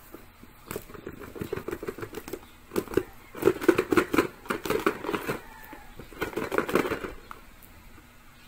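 Rustling, tapping and scraping of hands handling a cardboard smartphone box and its plastic wrap, coming in irregular bursts that are busiest and loudest in the middle and die down near the end.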